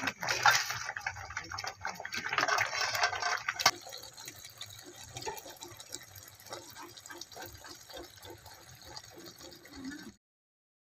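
Thick masala gravy in a cooking pot: wet sloshing and stirring for the first few seconds, then after a sudden cut a quieter, steady run of small plops as the thinned gravy bubbles on the heat. The sound stops abruptly near the end.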